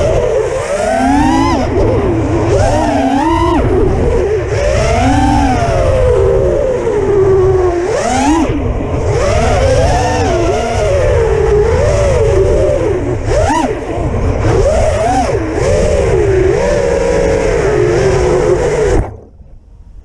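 Brushless motors and propellers of a 6-inch FPV racing quadcopter, heard from its onboard camera: a whine that rises and falls sharply with each throttle punch, over wind rumble. Cuts off suddenly about a second before the end as the quad lands and disarms.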